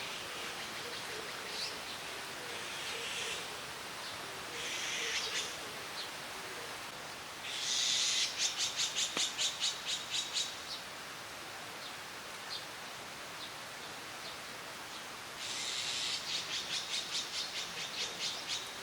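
Birds calling over a steady outdoor hiss, with two long runs of rapid repeated chirps, about five a second: one in the middle and one near the end.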